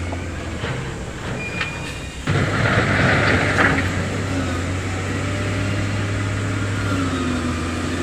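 Diesel engine of heavy earthmoving equipment running steadily. About two seconds in a louder, harsher noise starts abruptly and eases off after about two seconds.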